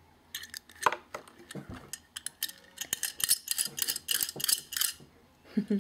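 Rapid small clicks and taps from a die-cast toy ambulance being turned over and handled in the fingers, thickest between about three and five seconds in.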